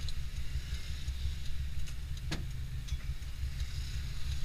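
A vehicle's engine running steadily, a low rumble heard from inside the cab, with a single sharp click a little past halfway.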